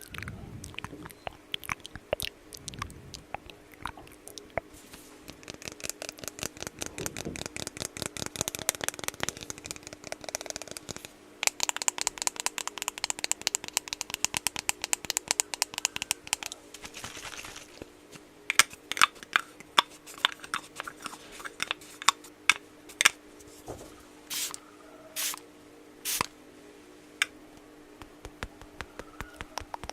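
Close-miked ASMR tapping and scratching on small objects. Quick runs of taps give way to stretches of scraping about a third of the way in, then to single louder clicks near the end, over a faint steady hum.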